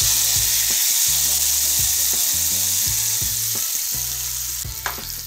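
Hot coconut-oil tempering of mustard seeds, dried red chillies and curry leaves sizzling loudly as it is poured onto a hot, thick curry. The hiss dies away near the end.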